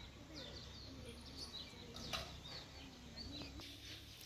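Small birds chirping repeatedly, short high falling chirps several times a second, over a low steady rumble.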